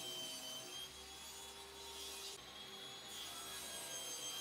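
Table saw running steadily with a high whine while a plywood piece is fed through the blade on a crosscut sled; the whine dips slightly in pitch early on as the blade cuts, with a hiss of cutting noise.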